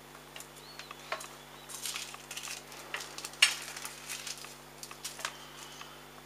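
Thin sheets of craft transfer foil crinkling and rustling as they are handled and lifted off a card, with small clicks and taps as a corded foil pen is pressed onto the foil. The loudest crackle comes about three and a half seconds in.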